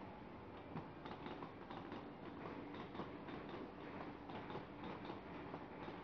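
Sheet-feeding paper bag tube forming machine running: a steady mechanical clatter of rapid, irregular ticks over a faint steady tone.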